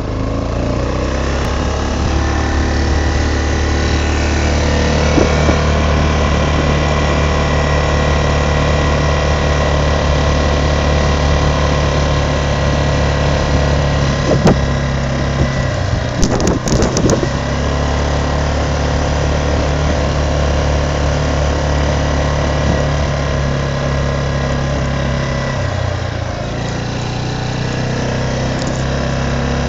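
Quad bike engine running steadily as it rides along, with a few sharp knocks around the middle.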